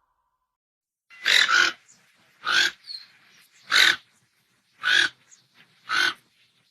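An animal giving short, harsh calls, five in a row about a second apart, starting about a second in; the first call is doubled.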